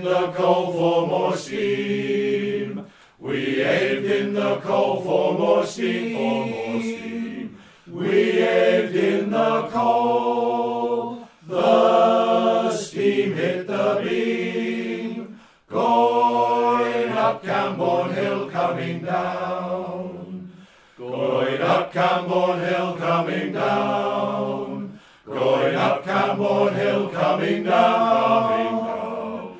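Male voice choir singing in harmony, in sustained phrases of about four to five seconds with short pauses for breath between them.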